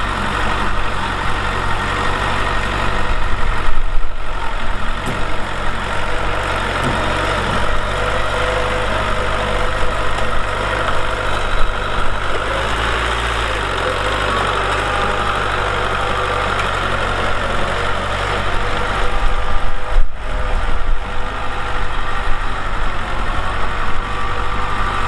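Heavy diesel construction machinery running steadily, its engine held at a constant pitch with a few brief louder moments.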